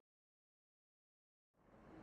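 Dead digital silence for about a second and a half, then faint background noise fading in.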